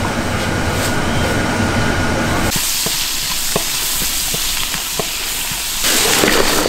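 Large pots of soup boiling hard over gas burners: a steady steam hiss with small bubbling pops, changing abruptly twice.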